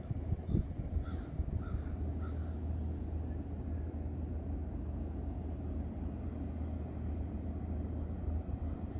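A crow cawing three times in quick succession, about a second in, over a steady low rumble.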